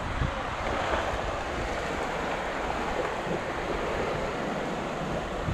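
Sea surf washing onto the beach as a steady rushing noise, with wind buffeting the microphone in low rumbles near the start.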